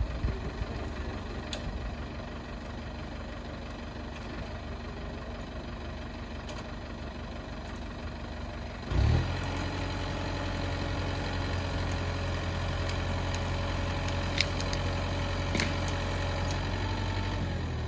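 Kubota tractor's diesel engine running steadily while skidding a log. About halfway through there is a brief loud thump, and the engine then runs louder and steadier.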